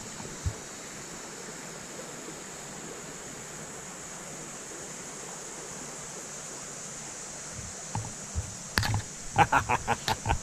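Steady rush of a shallow, clear creek flowing over a gravel bed. Near the end a quick run of sharp clicks and splashes cuts in.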